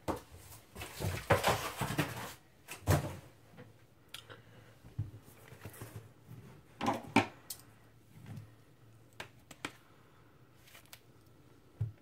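Shrink-wrapped vinyl LP being picked up and handled: rustling of the plastic wrap and cardboard sleeve, with several clicks and knocks against the table. The handling is loudest in the first three seconds and again about seven seconds in, with a low thump near the end.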